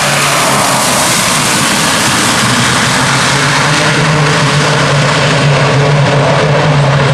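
Daher-Socata TBM 850's Pratt & Whitney PT6A turboprop and propeller running on the landing roll: a steady turbine-and-propeller rush over a low droning hum, which grows a little louder about halfway through.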